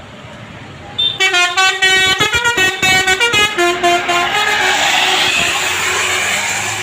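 Telolet Basuri multi-tone bus horn playing a loud, quick melody of stepping notes, starting about a second in. Over the last few seconds a broad rushing noise builds up under the notes.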